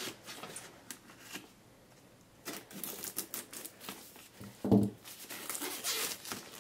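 Plastic shrink wrap being cut and peeled off a cardboard box: irregular crinkling and scratchy tearing, with one short louder bump about two-thirds of the way through.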